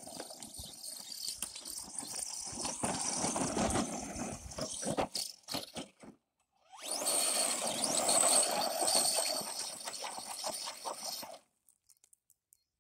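Arrma Senton 4x4 RC truck's electric motor running hard as its tyres spin and spray dirt and gravel across dry ground. The sound breaks off briefly about six seconds in, and cuts off a little over a second before the end.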